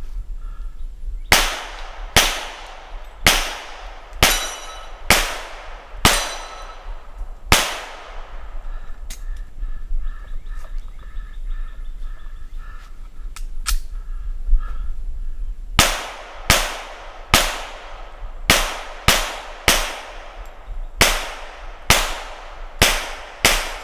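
Glock pistol in .40 firing: about seven shots roughly a second apart, a pause of several seconds, then a quicker string of about a dozen shots.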